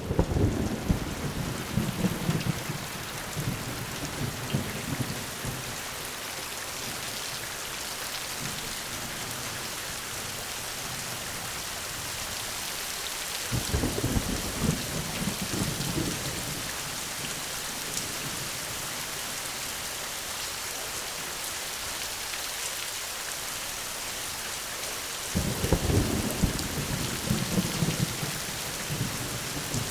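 Steady rain with rolling thunder: a rumble of thunder at the start, another about halfway through and a third near the end.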